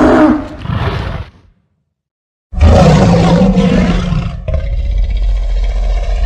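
Godzilla roar sound effects: the tail of one roar dies away about a second in, then after a second of silence a new loud roar starts. About two seconds later it turns into a steady low rumble with a hiss over it.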